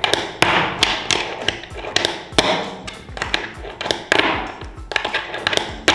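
Fingerboard being popped and flipped on a tabletop: a series of sharp clacks as the tail snaps and the board lands, with short stretches of the wheels rolling between them.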